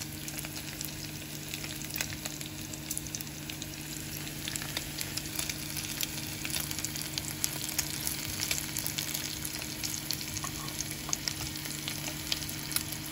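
Thin slices of beef brisket and chunks of green onion sizzling in oil in a frying pan, with frequent crackles and pops as the fat spatters. A steady low hum runs underneath.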